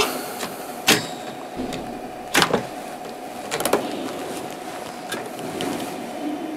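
Steady hum of a running bench-test PC, its CPU cooling fan and power supply spinning, with a constant tone. About five sharp clicks and knocks from handling break through it, roughly a second apart.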